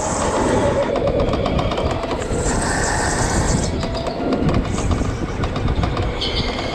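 Electric go-kart driven at speed around an indoor track: a steady rumble of tyres and chassis with a faint motor whine that shifts up and down in pitch.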